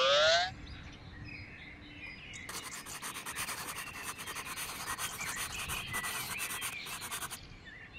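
A quick rising whistle glide at the very start. Then a pencil scratches on paper in rapid strokes as it writes, with birds chirping faintly behind it.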